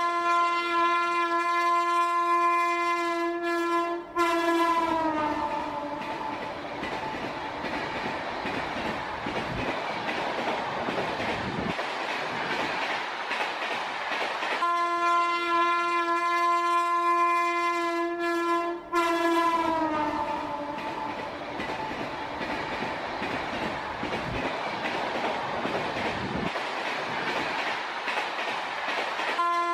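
Train horn sounding a long steady chord that slides down in pitch as the train goes by, then the rumble and clatter of the passing train. The same horn-then-rumble sequence comes again about halfway through, and the horn starts once more near the end.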